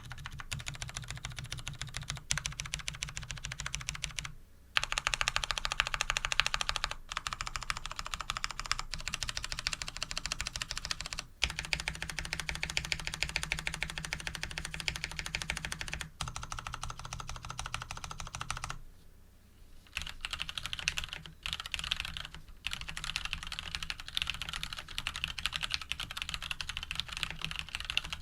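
Fast, continuous typing on a custom mechanical keyboard with Krytox 105–lubed Cherry MX Brown switches, a steel plate and JTK keycaps. The key presses come in long runs with a few brief pauses.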